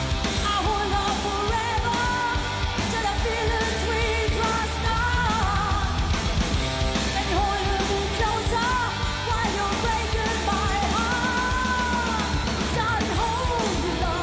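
Live heavy metal song: a woman singing a bending melody line over distorted electric guitars, bass and drums.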